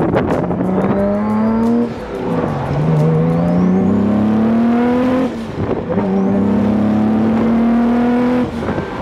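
Turbocharged 3.2-litre V6 of a 1997 Acura NSX pulling up through the gears of its six-speed manual, heard from the open-top cabin. The engine note rises steadily, then drops sharply at each upshift: about two seconds in, again past five seconds, and near the end.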